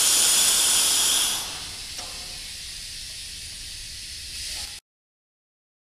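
Compressed air hissing out of a passenger coach's alarm chain valve: the brake-pipe air leakage after the alarm chain is pulled. The hiss is loud at first, drops to a quieter hiss about a second and a half in, and cuts off abruptly about five seconds in.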